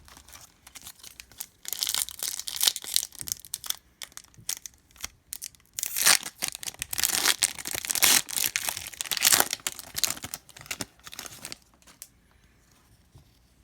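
Foil wrapper of a hockey card pack being torn open and crinkled by hand, in two stretches of crackly tearing and rustling.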